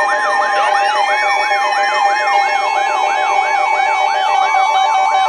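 Electronic alert siren: a yelping tone that sweeps up and down about three times a second, layered over steady alarm tones and a two-note alternating tone, sounding as the lead-in to an emergency weather alert.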